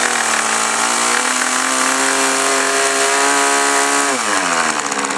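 Small RC model airplane engine running at high speed just after starting, with a steady buzzing note. About four seconds in, the pitch drops as it is throttled back.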